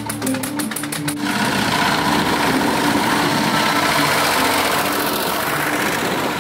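Old tractor engines running as tractors drive by. One engine gives a rapid, even clatter for about the first second, then the sound settles into a steadier engine noise.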